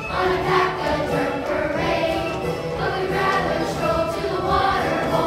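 Children's chorus singing together with musical accompaniment, a stage-musical song number.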